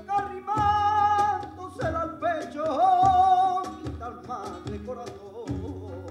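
Live flamenco guajira: a male cantaor sings long, drawn-out melismatic notes with a wavering vibrato over flamenco guitar, with repeated low percussion thumps and sharp palmas handclaps.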